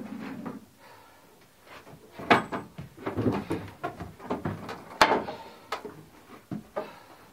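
Wooden knocks and clatter as a cow is brought into a wooden milking stanchion and a plastic bucket is handled, with one sharp bang about five seconds in.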